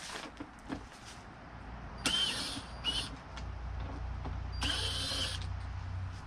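Cordless drill-driver run in two short spurts, about two seconds in and again near the five-second mark, with a brief blip between, its motor whine rising as it spins up: driving out screws on a Dodge Ram heater box. A low hum sits underneath from the middle on.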